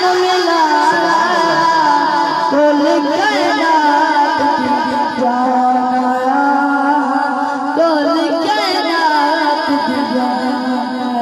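A boy singing a Punjabi naat solo into a microphone, without instruments, in long melismatic phrases with wavering, sliding pitch and some long held notes.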